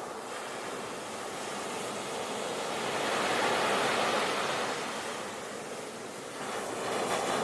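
Ocean waves breaking and washing on the shore: a steady rushing surf that swells to a louder wash about three to four seconds in, eases, and builds again near the end.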